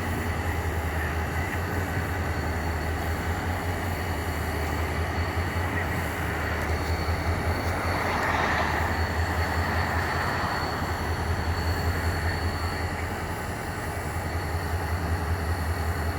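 Freight train of ballast cars rolling past: a steady low rumble of wheels on rail, with a thin high tone running through it, swelling a little about eight to ten seconds in.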